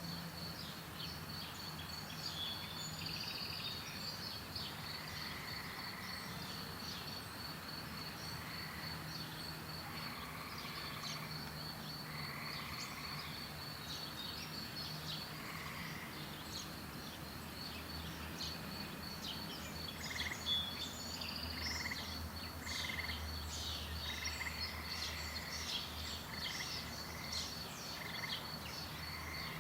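Several songbirds chirping and calling over a steady, high, pulsing insect trill. The bird calls grow busier in the second half.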